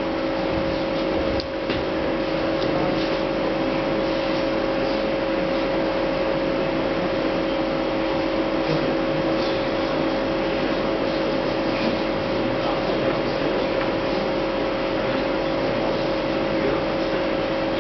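Steady room noise with a constant hum of two held tones, as from a live venue's sound system left on between acts.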